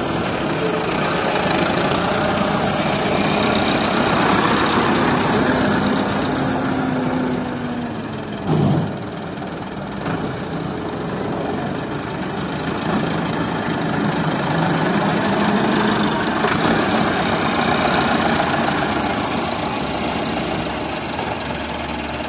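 Diesel tractor engine running hard, its pitch rising and falling as it revs. A short, loud thump comes about eight and a half seconds in.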